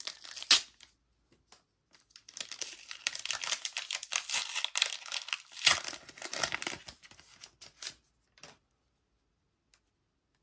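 A trading-card booster pack wrapper being torn open and crinkled: one sharp rip about half a second in, then a long stretch of crackling and rustling from about two seconds in to about eight seconds in.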